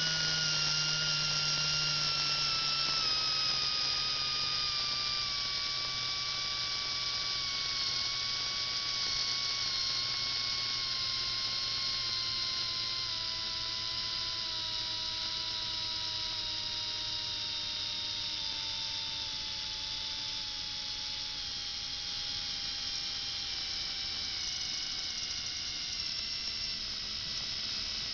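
Falcon electric motor in a Champion Turboflex slot car chassis running on the bench, driving the rear axle: a steady whine whose pitch slowly sinks as the motor gradually slows.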